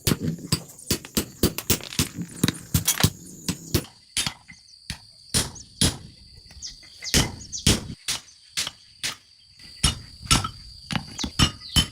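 Hand-hammer forging of a knife blade on an anvil: a series of sharp metal strikes, quicker in the first few seconds, then about two a second with a steady high ringing between them.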